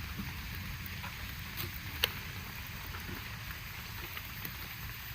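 Steady hiss of rain, with a low rumble underneath and one sharp click about two seconds in.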